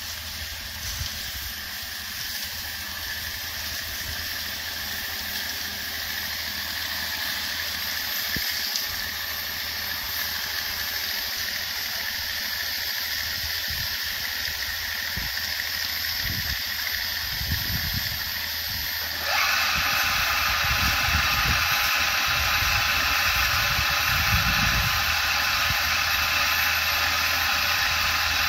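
A portable drilling rig running steadily, its engine and pump joined by a rushing, water-like hiss. About nineteen seconds in, the hiss jumps suddenly louder and stays there.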